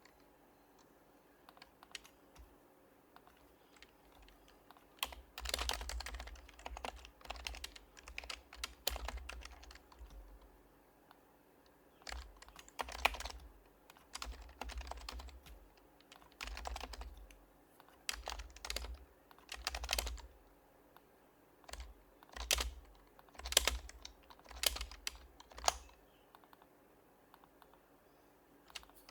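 Typing on an HHKB Professional HYBRID Type-S keyboard with silenced Topre capacitive switches. It is quiet for the first few seconds, then comes in irregular bursts of keystrokes with short pauses between them, with a few louder single key presses near the end.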